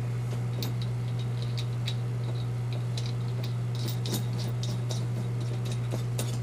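Light, irregular metal clicks and ticks of hardware being handled as beer shanks and their flat nuts are fitted through the fridge wall, thickest a little past the middle, over a steady low hum.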